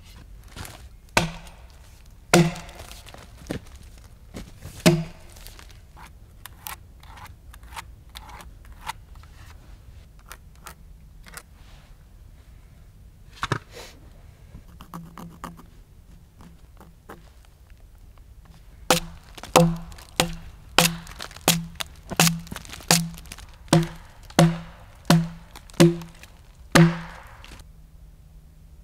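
Axe blows chopping into a large pine log, each a sharp thunk with a short low ring from the wood. A few heavy strikes and some lighter knocks come first, then near the end a steady run of about a dozen strokes, nearly two a second.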